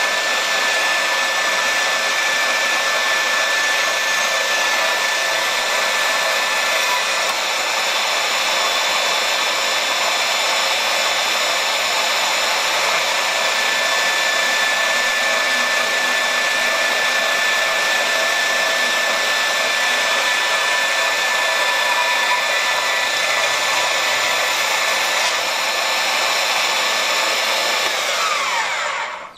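Vertical bandsaw running and cutting through a twisted bar of 3/8-inch square mild steel: a steady whir with a constant high tone. Near the end the saw winds down, its pitch falling, and stops.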